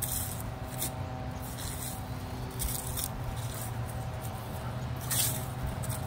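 Footsteps crunching through dry fallen leaves and brush, short crackles coming irregularly about once a second, over a steady low hum.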